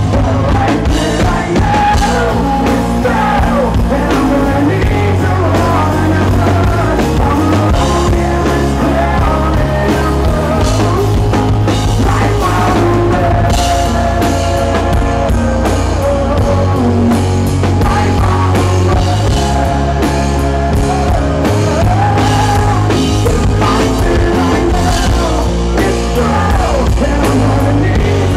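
Live rock band playing loudly: a man singing lead over guitar and drums.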